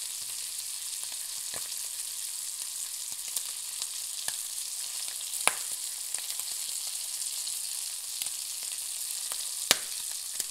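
Bacon frying: a steady sizzling hiss with scattered sharp pops and crackles, the loudest pops about five and a half seconds in and near the end.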